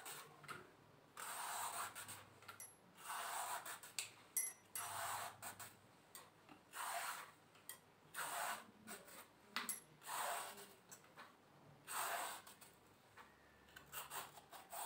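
A handheld vegetable peeler scraping the skin off a bottle gourd in repeated strokes, about one a second, each a short hissy scrape with a few small clicks between them.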